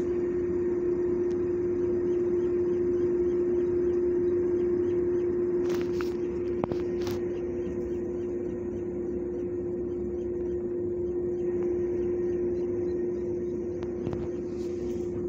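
A steady machine hum holding one unchanging pitch, with a few faint clicks over it.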